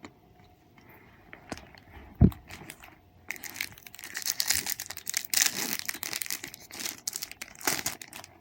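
A trading-card pack's wrapper being torn open and crinkled, a dense rustling that runs from about three seconds in until near the end. A single loud thump comes about two seconds in.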